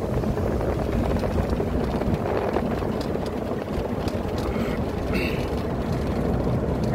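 A vehicle driving along a road: a steady rumble of engine, tyres and wind noise.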